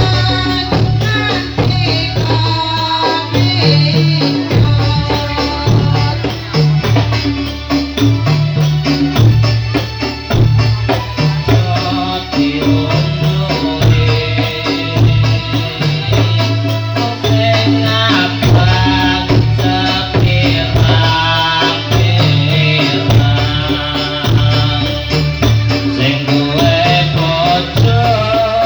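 Dolalak dance music: drums beaten in a steady rhythm with rattling jingles, and a sung melody over them.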